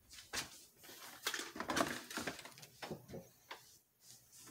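Light, irregular knocks and clatters of items being handled and set down at an open refrigerator as something is put back inside.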